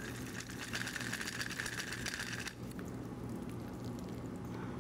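Strained cocktail trickling faintly from a copper shaker tin through a fine-mesh strainer into a coupe glass; the trickle fades about halfway through.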